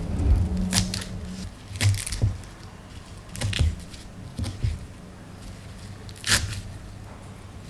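Food-preparation handling noises as ingredients are added to a Thai seafood salad: about five short, sharp tearing-like noises at irregular intervals, over a faint low hum.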